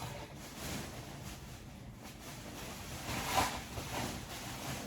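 Takeout food packaging being handled and opened, a soft rustling with one louder rustle about three and a half seconds in.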